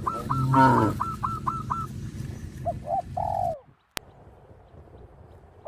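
Birds calling: a rapid run of short, hooked chirps, about five a second for two seconds, with a louder, lower call about half a second in, then a few cooing notes. The sound cuts off abruptly with a click about four seconds in, leaving faint background.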